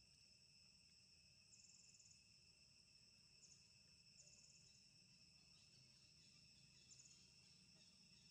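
Faint, steady insect chorus: a shrill drone held on several high pitches. A few short trills of rapid ticking break in over it, the longest about a second and a half in and about four seconds in.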